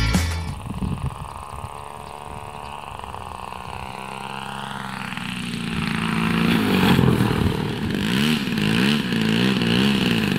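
RC model airplane's engine running, fainter for the first few seconds, then louder from about six seconds in, its pitch wavering up and down about one and a half times a second.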